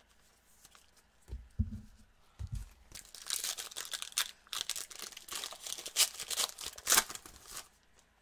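The plastic wrapper of a Panini Prizm cello pack of trading cards is torn open and crinkled by hand. The tearing starts about three seconds in and lasts some four seconds, with the sharpest rips near the end. It follows a few soft low thumps from handling.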